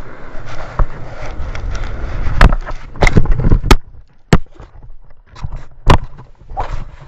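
Snowboard scraping over packed snow, with irregular sharp knocks and rubbing as the handheld camera is jostled against glove and clothing; it goes quieter for a moment about two-thirds through.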